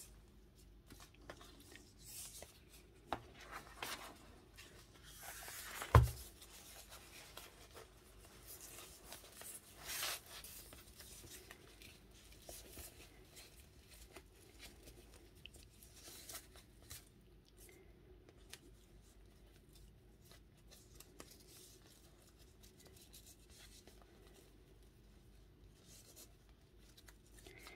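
Quiet rustling and small taps from a handmade paper journal and its binding being handled, with a sharp knock about six seconds in and a brief louder rustle around ten seconds.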